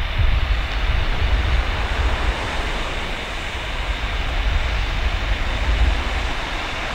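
Airbus A320's twin IAE V2500 jet engines at climb power, a steady rushing rumble as the airliner climbs away after takeoff.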